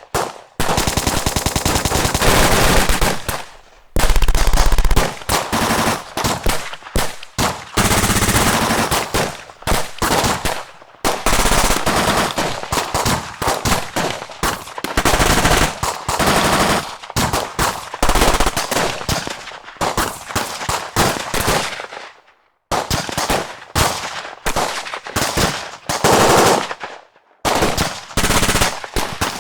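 Loud battle gunfire: long bursts of rapid automatic fire, each running several seconds, broken by a few short pauses.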